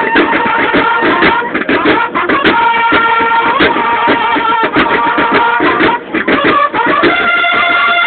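Banda de guerra (Mexican drum and bugle band) playing: bugles hold sustained notes that change a few times, over rapid, dense drumming.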